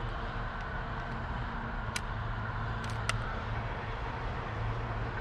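Distant motor vehicle engine running with a steady low drone, with a couple of light clicks about two and three seconds in.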